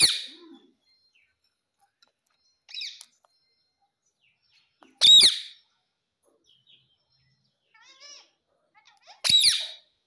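Rose-ringed parakeet giving three loud, shrill screeches, near the start, halfway and near the end, with a couple of quieter chattering calls in between.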